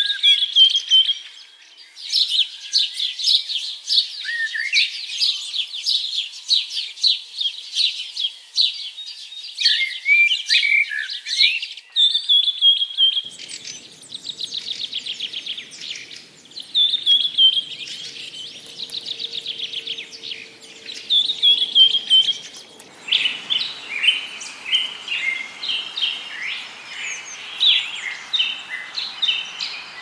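Small songbirds singing: rapid high trills and chirps repeated over and over. The mix of songs changes abruptly a few times, and a faint outdoor noise rises underneath in the last third.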